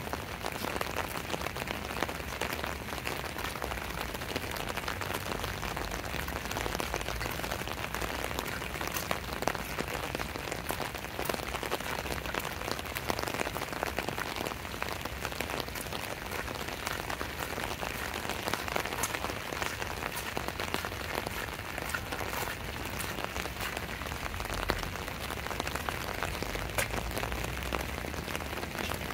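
Steady rain falling, with many sharp taps of single drops heard over the constant hiss.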